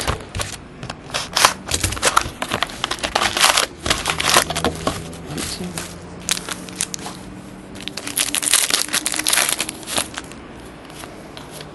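Plastic wrapping and foil card packs crinkling and tearing, with hockey trading cards handled and slid out, in quick rustling spells that are busiest in the first few seconds and again about eight to ten seconds in.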